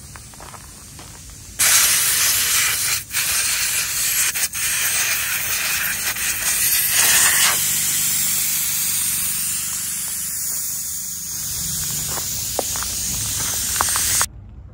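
Air hissing out through the valve of an Eicher 242 tractor's front tyre as it is let down flat. A loud, steady hiss starts about a second and a half in, breaks off briefly twice soon after, and cuts off suddenly near the end.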